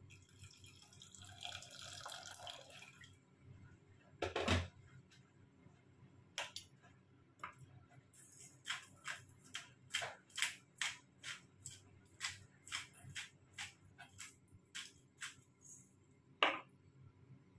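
Water poured from an electric kettle into a steel pot, then the kettle set down with a knock. A hand-twisted spice grinder then clicks over the pot in quick turns, about two clicks a second, and ends with a single knock.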